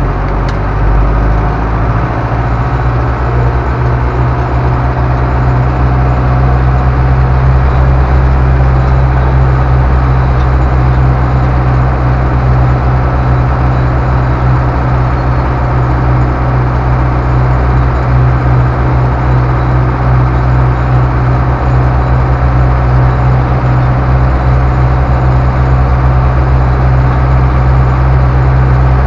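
Ursus C-385 tractor's four-cylinder diesel engine heard from inside the cab, pulling away and building up over the first few seconds, then running steadily at road speed with a deep, even drone.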